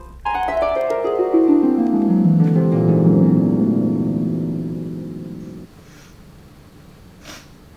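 Music cue: a long descending glissando of ringing harp- or piano-like notes, the dream-transition sound effect, with the notes piling up and sustaining before cutting off abruptly about five and a half seconds in; faint room tone follows.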